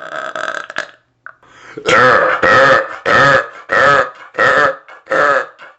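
A person belching over and over in quick succession, belches taking the place of breaths. A longer belch trails off within the first second, then after a short pause comes a run of six short, loud belches, about one every 0.6 s, each wavering in pitch.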